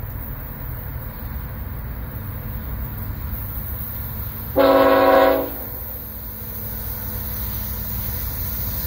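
BNSF freight locomotive's air horn sounding one chord blast of about a second, a little before the middle, over a steady low rumble as the train approaches.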